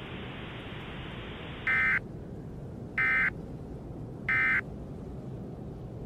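Emergency Alert System end-of-message data bursts: three short electronic buzzes about a second and a half apart, over a steady hiss, signalling that the warning broadcast is over.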